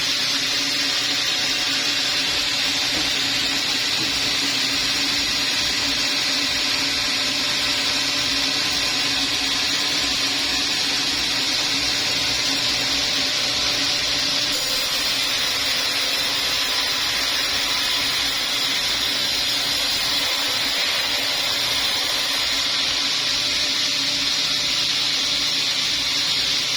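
Sawmill saw running steadily, a continuous high machine whine over a steady hum.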